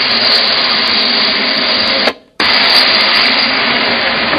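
Steady, loud rushing noise that cuts out abruptly for a moment about two seconds in, then resumes.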